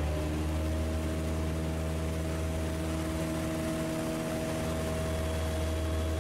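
Cessna 152's four-cylinder engine and propeller droning steadily at a constant pitch, heard from inside the cockpit with the power on for a stall entry. A thin high tone comes in near the end.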